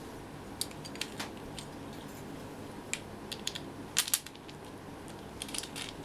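Small, sharp metal clicks and taps from a bolt and hardware being handled and pushed through a PVC tube, scattered and irregular, with a quick cluster about four seconds in.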